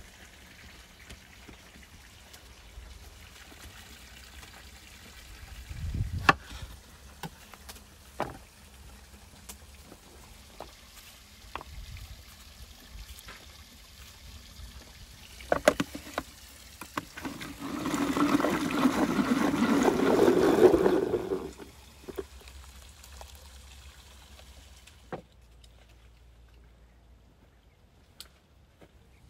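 Kitchen knife cutting peeled tomatoes, with scattered soft clicks and taps as pieces drop into a plastic chopper bowl. About seventeen seconds in, a steady wet churning noise runs for about four seconds, most likely the food chopper puréeing the tomatoes.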